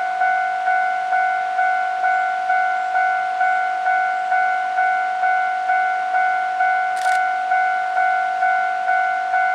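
Japanese railway level-crossing warning bell ringing its repeated electronic clang, a little over two strikes a second, warning of an approaching train. A brief click sounds about seven seconds in.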